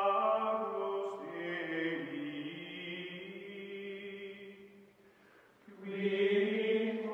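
Chant-like choral music with long, held vocal notes. It fades almost away about five seconds in and swells back a second later.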